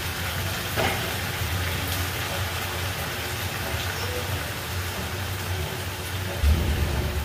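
Squash and vegetables cooking in a steaming pan on the stove: a steady hiss with a low rumble beneath, and a short scrape of a silicone spatula against the pan about a second in.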